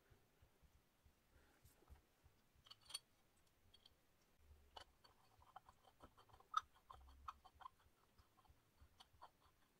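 Faint clicks and light metal-on-metal taps as painted iron pottery-wheel parts, a flat bar and a disc, are fitted together with a bolt and a nut driver. A quick run of small clicks comes past the middle, with one sharper click among them.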